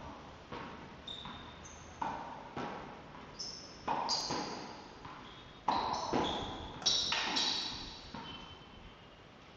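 Tennis ball being hit with a racket against a wall and bouncing off a tiled floor: a run of sharp pings and knocks, often two about half a second apart, each ringing and echoing in a large bare room.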